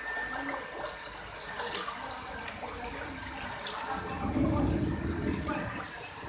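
Heavy rain with water running and splashing. About four seconds in, a low rumble swells for over a second, then fades.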